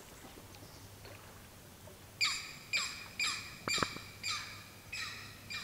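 A bird calling a quick series of harsh, downward-slurred squawks, about two a second, starting about two seconds in.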